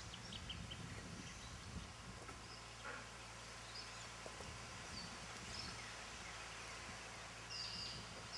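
Faint outdoor ambience: a low steady hum under an even hiss, with a few short, high chirps, the clearest near the end.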